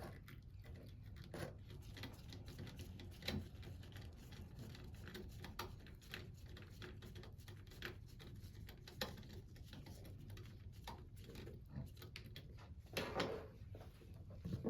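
Faint, scattered clicks and taps of hands and a tool working on small wiring parts as the black wire is fastened to the hot terminal of the pump's power plate.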